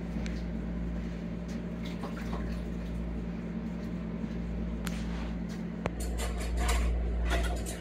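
A steady low electrical-sounding hum, with a few faint clicks a few seconds in and a stretch of soft rustling near the end.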